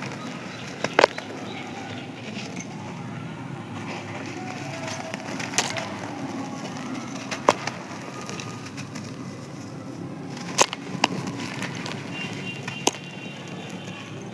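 Dry, crispy sand-cement being crushed and crumbled: a continuous gritty crackling broken by several sharp snaps as pieces break.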